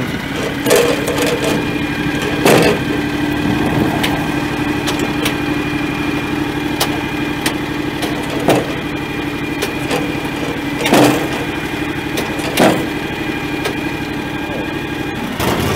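John Deere X738 garden tractor's three-cylinder diesel engine idling steadily, with several sharp knocks over it.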